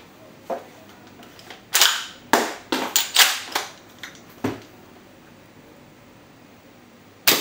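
Marushin Kar98K shell-ejecting gas airsoft rifle, powered by 134a gas. From about a second and a half to four and a half seconds in, a run of metallic clacks and rattles as the bolt is worked and a shell is handled. Then one sharp gas shot near the end.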